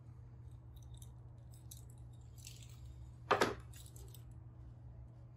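Small clicks and light rattles of a plastic solder tube and a pen-style soldering iron being handled, with one short louder rush of noise a little after three seconds in. A steady low hum sits underneath.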